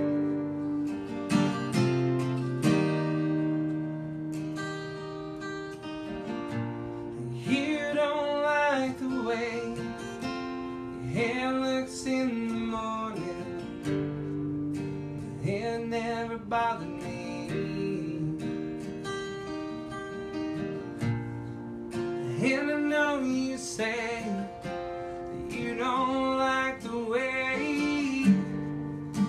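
A song performed live: an acoustic guitar is strummed on its own at first, and a voice comes in singing about seven seconds in, carrying on over the guitar.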